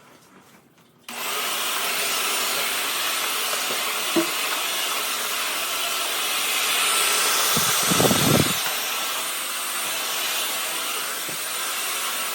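Deerma DX700S vacuum cleaner switched on about a second in and running steadily with a loud, even rush of air. A dull knock comes about two thirds of the way through.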